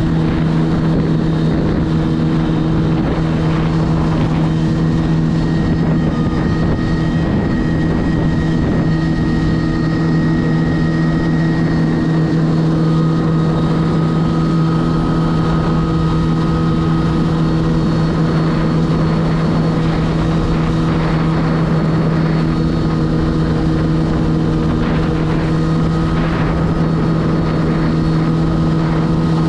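Jet ski engine and jet drive running at a steady cruising speed: a constant, unchanging engine hum over a rushing noise.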